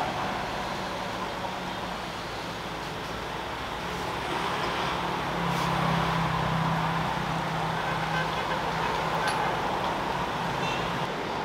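A small engine running steadily, with street traffic behind it. A motorbike passing about halfway through brings a swell in the engine sound.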